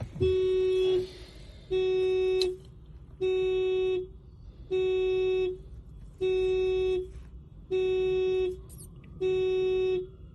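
2016 Honda Civic's horn sounding its anti-theft alarm: a steady horn blast just under a second long, repeating about every one and a half seconds. The alarm was set off by unlocking the car without a programmed key.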